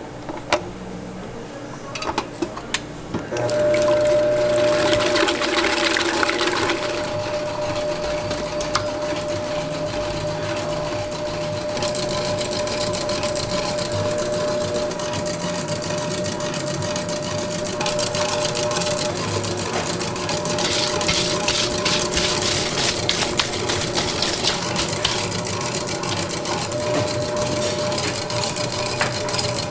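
A few metal clicks as a whisk attachment is fitted to a commercial stand mixer. About three seconds in, a steady motor whir with a constant hum starts and runs on, with stretches of hissing, rattling whisking noise over it.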